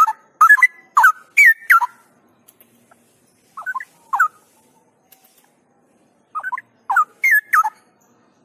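Straw-headed bulbul singing loud phrases of whistled notes that sweep up and down, in three bursts: a long run at the start, a short phrase about halfway through, and another run near the end.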